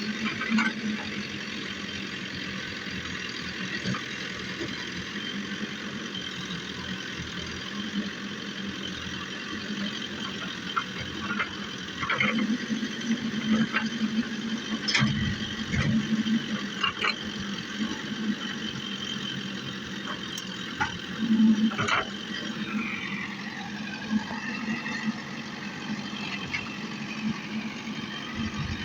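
JCB backhoe loader's engine running steadily, with scattered sharp knocks. About two-thirds of the way through, a whine dips in pitch and then rises again.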